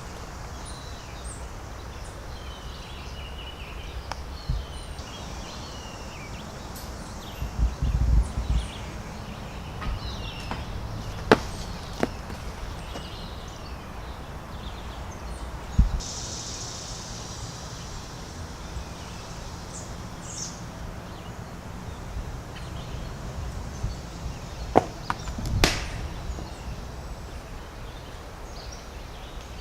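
Outdoor ambience with birds chirping and a low wind rumble on the microphone that gusts about eight seconds in, broken by a handful of sharp knocks or clicks scattered through, the loudest near the middle and near the end.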